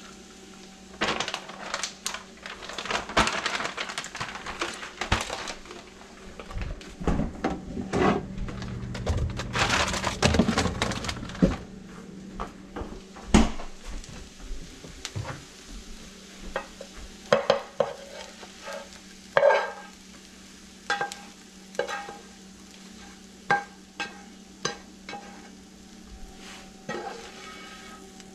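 Scrambled eggs sizzling in a nonstick frying pan while a spatula stirs and scrapes them, in two long stretches. After that come separate scrapes and clacks of the spatula against the pan as the eggs are pushed around and scooped out.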